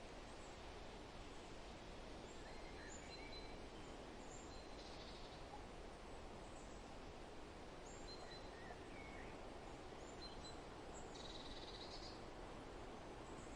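Forest ambience: a steady faint rustle of wind through foliage, with scattered short, high bird chirps and two brief buzzy bird trills, one about five seconds in and a longer one near the end.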